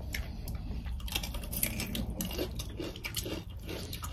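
Close-miked chewing of food, with irregular small crunches and wet mouth sounds.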